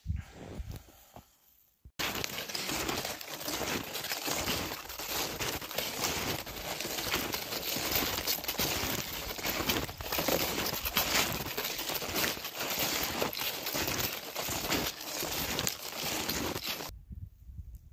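Snowshoe footsteps crunching through snow at a steady walking pace, starting about two seconds in and stopping abruptly near the end.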